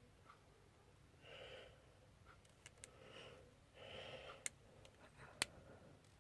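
Faint breathing close to the microphone, about three breaths, with four small sharp clicks spread through the middle and later part.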